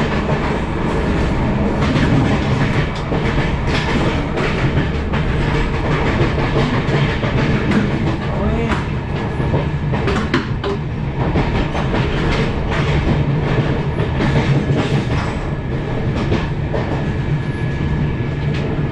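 Running noise of a Tejas Rajdhani Express sleeper coach at speed, heard inside the coach: a steady rumble with the clickety-clack of wheels over the rails and scattered sharp clicks.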